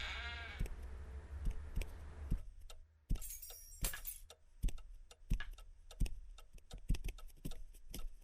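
Clock ticking steadily, about one and a half ticks a second, with a brief metallic jingle of keys a little after three seconds in.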